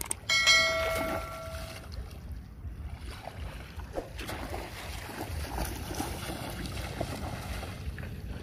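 Wind noise on the microphone over water sloshing and splashing as a boy wades through shallow floodwater. Near the start, a chime-like sound effect with several overtones rings and fades out over about a second and a half.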